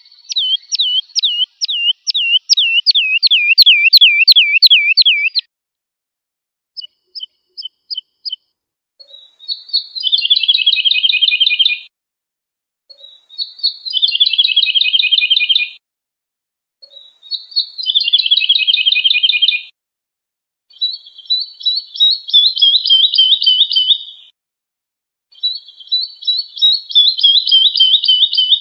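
A lark singing. It starts with a run of about sixteen ringing down-slurred notes, roughly three a second, then gives a few short high pips, then five fast trilled phrases of two to three seconds each with short pauses between them, most sliding down in pitch.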